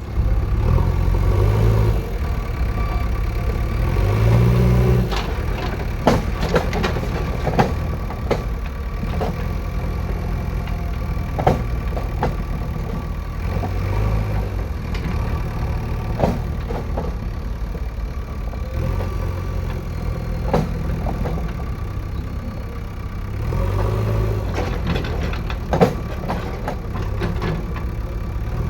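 JCB 3DX backhoe loader's diesel engine running steadily, its note rising briefly under hydraulic load a few times as the machine lifts its front wheels, with scattered sharp metallic clanks and knocks.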